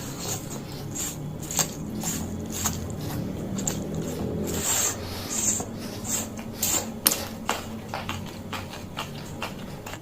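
Close-miked eating of Aceh fried noodles: irregular wet mouth clicks and chewing, with a few short hissing slurps around the middle.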